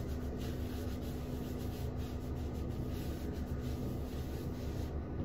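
A cloth towel rubbing briskly over short hair on a head, a soft repeated scrubbing, over a steady low hum.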